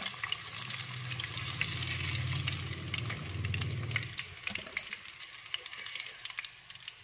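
Breadcrumb-coated fish fingers deep-frying in a small pan of oil, the oil sizzling with many fine crackles as they finish browning. A low hum runs underneath and stops about four seconds in.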